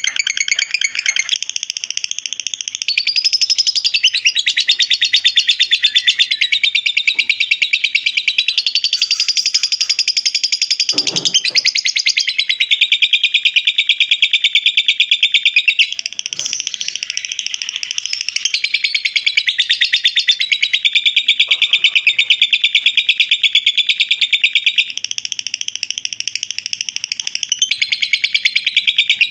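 Lovebird 'ngekek': a long, unbroken run of rapid, high chattering trills that shifts its pattern every few seconds without pausing.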